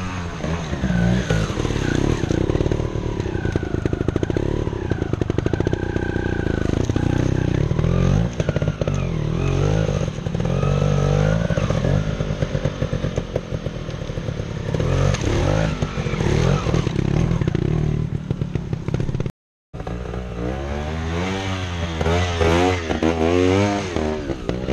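Trials motorcycle engines revving up and down in short blips as riders pick their way over rock ledges. The sound drops out briefly about three quarters of the way through.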